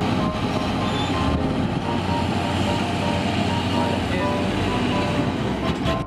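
Heavy machinery running: a steady rumble with short, repeated whining tones over it.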